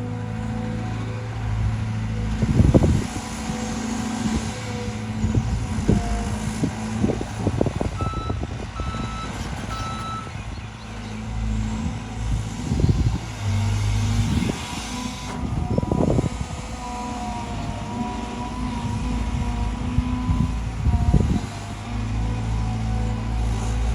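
Cat 320GC excavator's diesel engine running steadily, with scattered knocks and clanks of machinery at work. About eight seconds in come three short reversing-alarm beeps, evenly spaced about a second apart.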